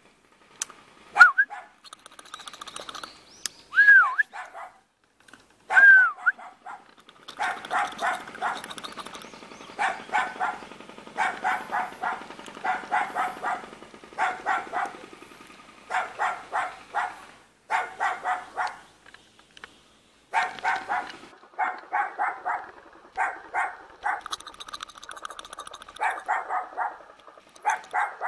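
Small chihuahua-type dog barking: a few separate high barks that rise and fall in pitch, then from about seven seconds in, rapid barking in quick bursts of several barks each with short pauses between.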